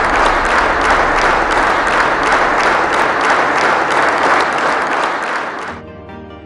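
A crowd applauding, a dense steady clapping. It cuts off sharply near the end, giving way to quiet music.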